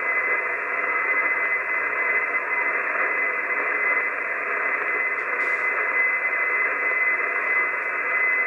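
Static hiss from an Icom IC-751 HF transceiver's receiver on an open channel, with no station transmitting. A steady high whistle runs through the hiss.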